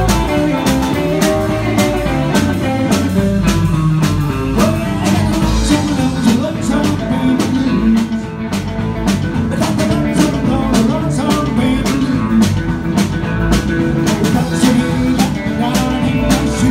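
Live rock and roll band playing: electric guitar lead over bass guitar and a drum kit keeping a steady beat.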